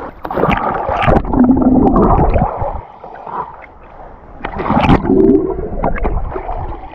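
River water splashing and gurgling right at the microphone as a bather dunks his head in a muddy, flooded river, in two loud spells with a quieter gap between them.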